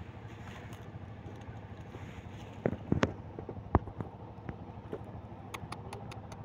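A puppy's paws crunching and rustling through dry fallen leaves, with several loud knocks near the middle, over a steady low hum.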